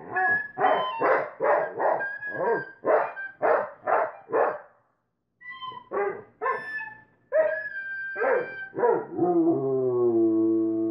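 A dog barking and woofing in a quick run of short, pitched calls, about three a second. After a brief pause it gives a few more, then goes into one long, drawn-out howl near the end.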